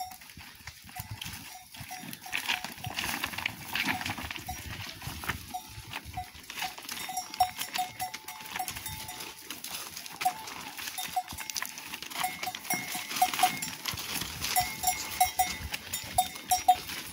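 Bells on a flock of sheep and goats clinking irregularly as the animals walk, at times several rings a second, with scattered clicks and knocks over stones.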